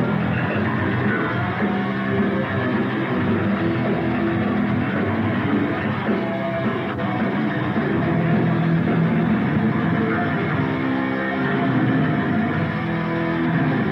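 Metal band playing live, with distorted electric guitars and a drum kit. The recording sounds dull, with the top end cut off.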